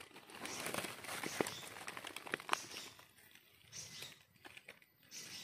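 Dry leaf litter crackling and a serrated knife scraping soil as a mushroom is dug out and the dirt scraped off its stem base, with scattered sharp clicks. It goes quieter after about three seconds, leaving only occasional ticks.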